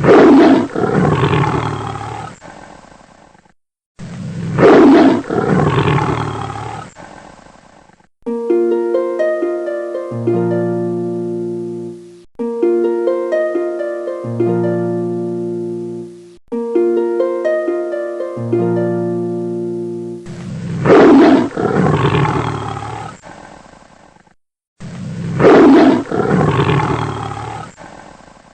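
Four loud animal roars, each about three seconds long and fading away: two at the start and two near the end. Between them, a short plucked-string melody plays three times over.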